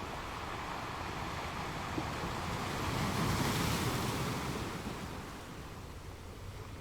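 Ocean waves surging on a shore. One wave swells to its loudest about three seconds in, then fades away.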